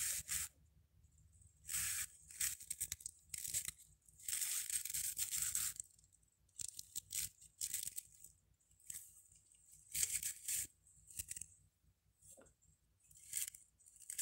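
Hands handling resin fairy-house figurines: a dozen or so short rustling, scraping bursts as the pieces are picked up, moved and set down again on artificial grass.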